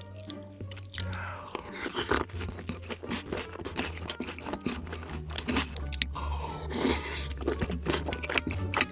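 A person biting and chewing crunchy food with loud, repeated crunches, over background music.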